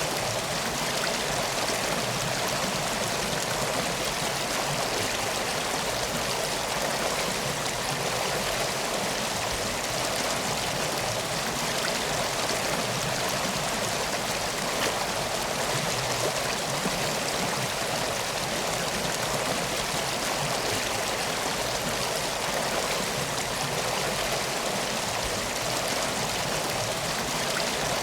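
Stream water flowing steadily, an even rushing with no change.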